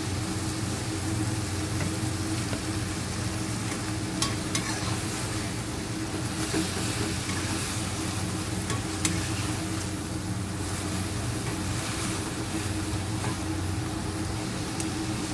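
Water spinach and sausage sizzling in a wok as a metal spatula stirs and tosses them, with a few sharp clicks of the spatula against the pan, near four seconds in and again around nine.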